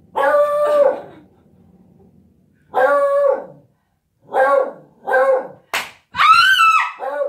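Beagle howling and baying in a string of drawn-out calls, the last one higher. About six seconds in, a single sharp slap of a shoe striking the wall.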